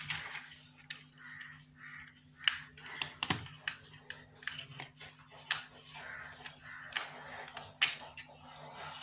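Irregular sharp plastic clicks and knocks as a plastic plate is pried and worked out of a rechargeable torch's plastic housing by hand.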